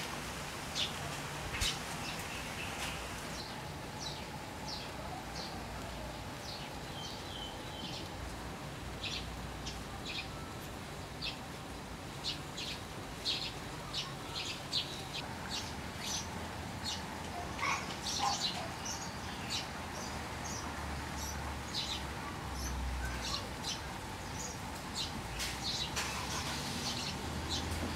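Small birds chirping: many short, high chirps scattered throughout, over a steady low background rumble.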